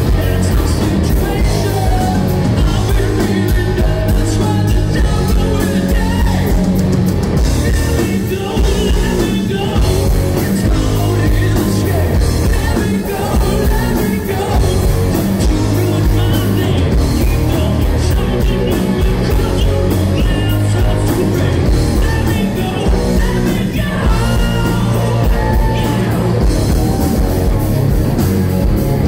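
Live rock band playing a song with lead singing over electric guitars, bass and drums, loud and continuous, heard from among the audience.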